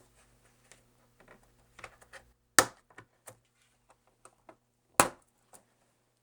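Aluminium bottom case of a MacBook Pro being pulled free of its plastic retaining clips: scattered small clicks and taps, with two loud sharp snaps about two and a half seconds apart as the clips let go.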